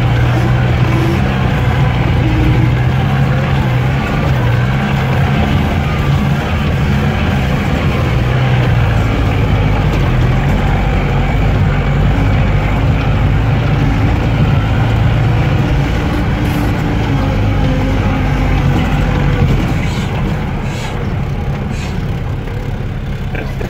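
A 4x4 off-roader's engine and drivetrain running steadily as it drives over a rough dirt track, heard from inside the cabin. It gets somewhat quieter over the last few seconds.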